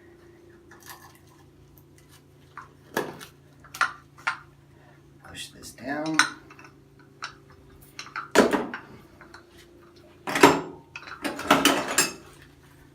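Metal hand tools clinking and clanking: scattered sharp clinks and knocks, loudest about eight and a half and ten and a half seconds in, with a quick cluster near the end.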